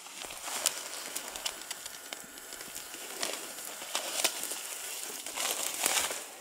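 Rustling and crackling of tussock grass and scrub being brushed through and trodden on, with clothing scraping near the microphone: an uneven string of scratchy noises and small snaps, louder in patches.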